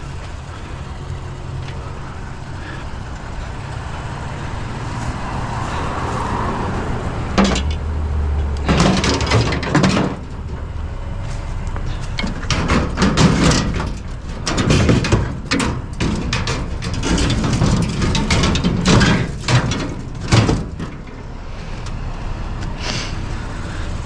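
Knocks, bangs and clatter of light scrap metal being handled and shifted into a vehicle, coming thick between about a third and nearly the end, over a steady low vehicle engine hum.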